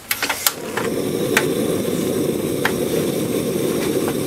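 A few quick clicks, then from about half a second in a steady low rushing noise with an occasional light tick: a pan of sake, water, mirin, sugar and soy sauce heating on the stove, being brought up to a boil for simmering fish.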